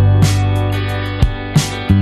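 Background pop music: strummed guitar over a steady bass and drum beat, without vocals.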